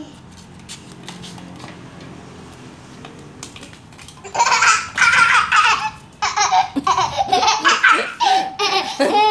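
Young child laughing loudly in repeated high-pitched bursts, starting a little over four seconds in.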